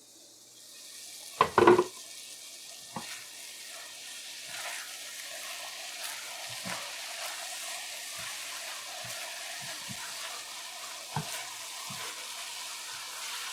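Eggplant and eddo sizzling in hot oil in a pan while being turned with a spoon, which knocks against the pan now and then. A louder clatter comes about a second and a half in.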